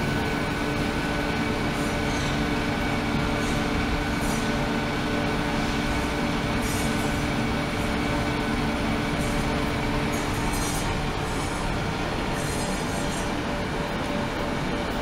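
Ultrasonic cleaning tank running with its liquid circulating: a steady hiss and hum with a few constant tones under it, and faint bursts of higher hiss every second or two.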